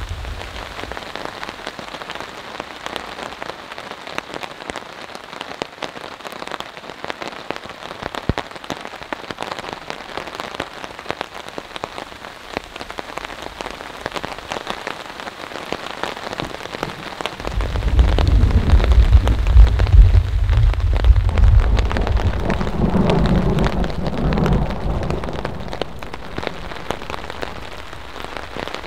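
Steady rain falling on a tarp overhead and on the ground around it, a dense run of drop ticks. About two-thirds of the way in, a long roll of thunder rises and rumbles for several seconds before fading.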